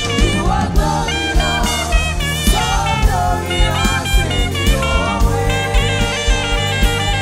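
Saxophone playing a worship melody with vibrato and slurred runs over a band, with a steady kick drum about twice a second and bass underneath, and backing singers joining in.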